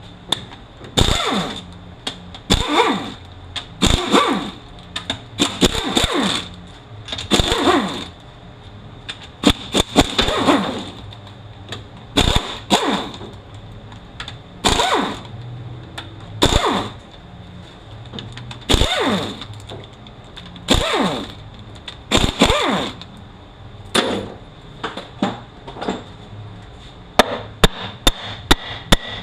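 A power tool run in about fifteen short bursts, spinning up and down each time, as bolts are run out of the transmission case. Near the end comes a quick series of sharp clicks.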